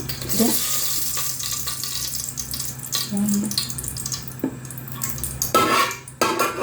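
Cooking oil poured from a container into a sufuria, a steady pouring hiss for about four seconds, followed by two short louder sounds near the end.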